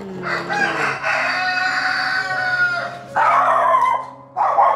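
A rooster crowing: one long, loud call of about three seconds on a held pitch that drops slightly at the end. Three short, harsh calls follow in the second half.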